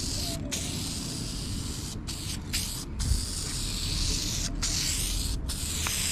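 Aerosol can of Vice Grip Garage Shine Juice spraying in long runs, broken by about six short pauses as the nozzle is let up.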